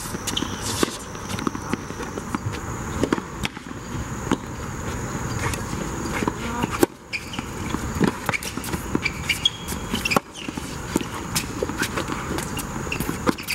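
Tennis ball being hit by rackets and bouncing on a hard court: repeated sharp pocks, with sneaker steps and scuffs between them. The sound breaks off abruptly twice.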